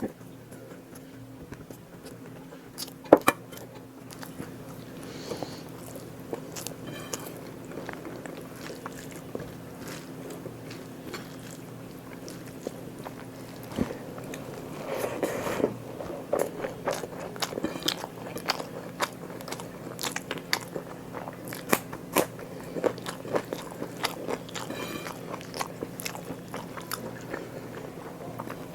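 Close-miked eating: biting and chewing with crunching and wet mouth clicks, one sharp click about three seconds in, busier from about halfway. A steady low hum runs underneath.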